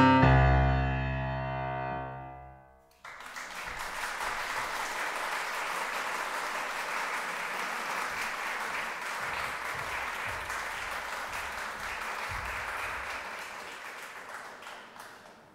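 Final chord on a Steinway concert grand piano, struck and left to die away for about three seconds. Then an audience applauds steadily and fades out near the end.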